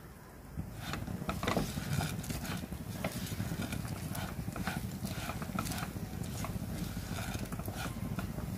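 Silicone spatula stirring and scraping washed raw rice with spices and vegetables in a non-stick pan, with many short irregular clicks and scrapes over a steady low hum. The rice is being sautéed in the masala before water goes in.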